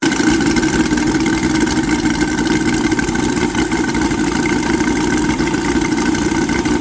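Twin UMS 5-55 five-cylinder radial model aircraft engines running steadily together, each swinging a 20x8 propeller during break-in.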